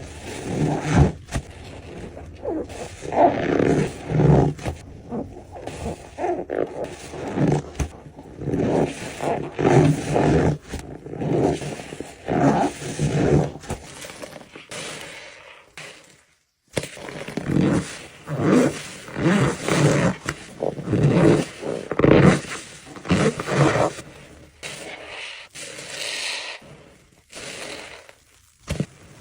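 Wet sponges being squeezed and wrung by hand, a rapid, irregular run of squeaks and squelches, with a brief silent gap a little past the middle.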